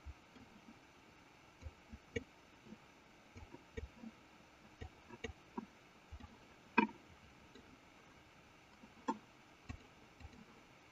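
Faint, irregular clicking of a computer mouse over a low hiss, a dozen or so clicks at uneven spacing, the loudest about seven seconds in.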